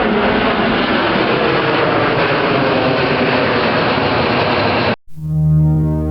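Loud, steady rumble of a moving vehicle, cut off suddenly about five seconds in and replaced by a held low musical note.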